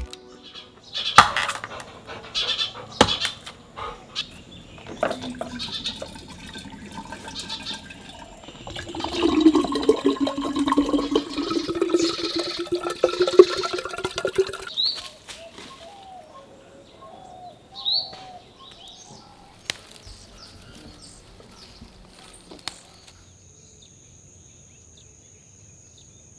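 Liquid poured into a glass bottle, gurgling and bubbling for about five seconds as it fills. A few sharp knocks come before it. Afterwards there are two short upward bird chirps, then a faint steady high-pitched tone near the end.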